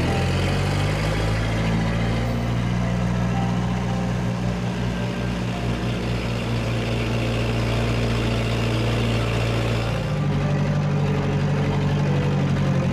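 A vehicle engine running steadily, its pitch shifting about ten seconds in.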